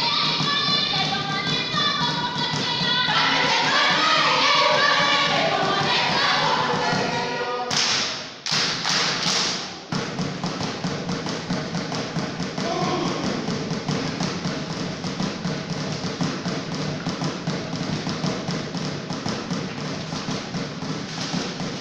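Group singing over a beat for a Kimeru dance, broken by a few short, shrill bursts; from about ten seconds in the singing stops and a fast, even run of thuds and taps takes over, percussion and dancers' feet stamping on a concrete floor.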